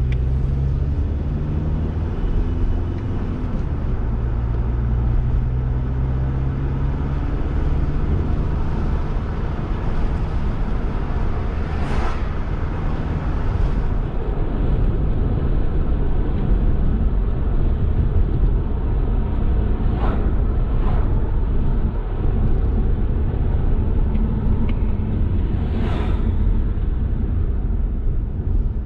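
Motor vehicles in slow road traffic: a steady low engine rumble whose hum shifts in pitch in the first few seconds, with a few short hissing sounds.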